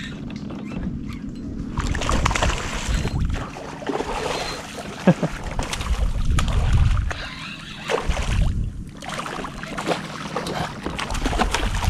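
Hooked snook thrashing at the surface beside a kayak as it is fought in, water splashing and slapping in irregular bursts, with low rumbling gusts on the microphone.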